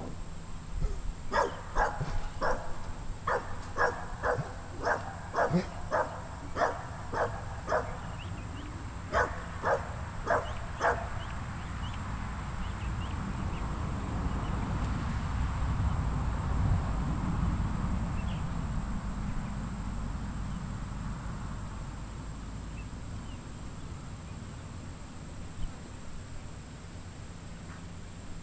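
A dog barking in a steady run, about two barks a second, which stops about eleven seconds in. A low rumble then swells and fades, with a steady high whine underneath throughout.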